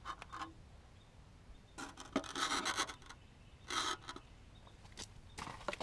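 Dryer vent cleaning brush on its rod being pushed into the exhaust duct, scraping and rubbing against the duct in several irregular bursts, the longest about two seconds in, with a few knocks near the end.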